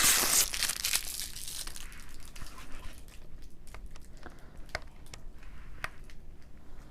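Thin plastic protective film crinkling and crackling as fingernails pick at its edge on a stainless-steel kitchen scale, with scattered small clicks. The crinkling is loudest in the first half-second, then quieter.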